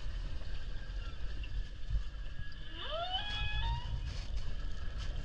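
Steady low rumble of an open inflatable boat under way at sea, with wind on the microphone. About three seconds in comes a single rising tonal call that climbs in steps and lasts about a second.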